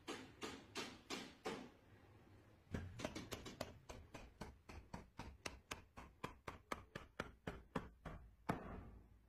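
Hardwood joinery pieces being knocked together as a mortise-and-tenon joint is fitted: a short run of light wood-on-wood knocks, a brief pause, then a faster run of about three to four knocks a second ending on a louder one near the end.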